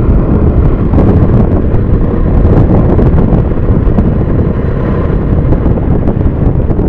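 Motorcycle engine running at road speed, with heavy wind buffeting on the microphone.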